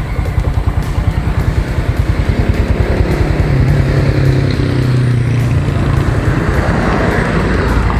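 Honda Wave 125i's single-cylinder four-stroke engine running under way. Its note rises about three seconds in as the motorcycle picks up speed, then holds steady.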